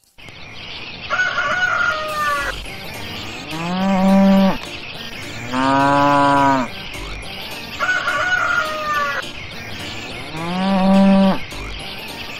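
Smartphone alert tone made of recorded farm-animal calls: a rooster crowing followed by cow moos, the same sequence repeating about every six and a half seconds.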